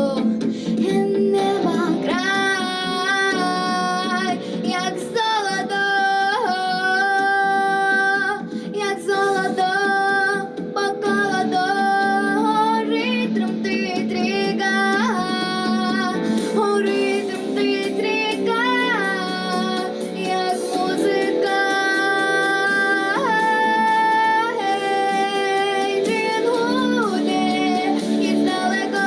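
A female voice singing a Ukrainian song over steady instrumental backing, with long held notes that bend and waver.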